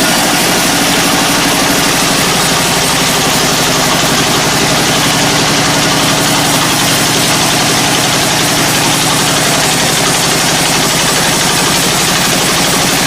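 Sawmill machinery running steadily: an engine holding an even speed, with a constant hiss over its hum.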